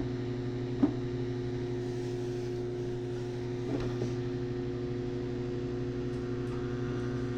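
GE JES1145SH1SS countertop microwave oven running, a steady electrical hum, with two short knocks near the start.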